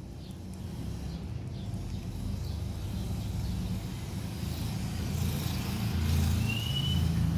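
Steady low background rumble, slowly growing louder, with one short high chirp near the end.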